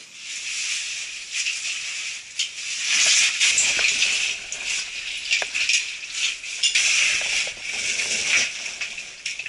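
Caver crawling through a tight boulder choke: oversuit and gear scraping and rustling against the rock, with many small clicks and rattles of loose stones.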